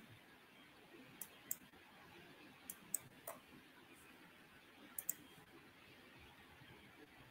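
Computer mouse clicking: about eight short, faint, sharp clicks, several in close pairs, the last pair about five seconds in, over quiet room tone.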